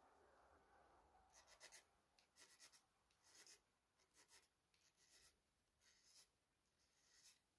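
Faint rasp of a small hand file on the newly fitted bone tip plate of a cello bow, in short strokes about once a second, starting a little over a second in.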